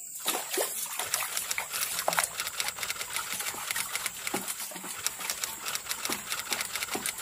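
A glass bowl washed by hand in a plastic basin of water: water sloshing and plopping, with quick, irregular clicks and knocks of the glass against the basin. A steady high hiss runs underneath.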